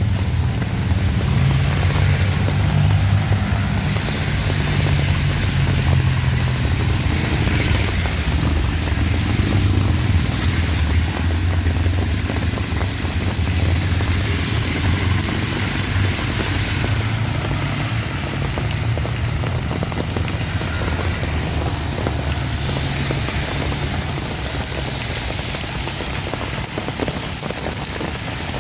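Heavy rain pouring steadily, with a strong low rumble underneath.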